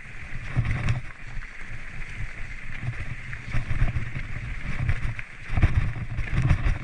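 Mountain bike being ridden along a rough trail: an uneven low rumble from tyres and wind on the microphone, with scattered rattles and clicks from the bike.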